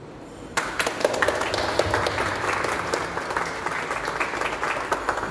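A group of people applauding by hand-clapping. It breaks out suddenly about half a second in and keeps up steadily.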